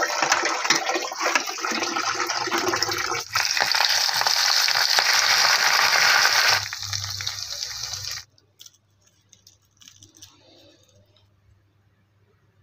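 Hands splashing and rubbing raw fish in a metal bowl of water. About three seconds in it gives way to semolina-coated fish sizzling as it shallow-fries in hot oil, which cuts off about eight seconds in.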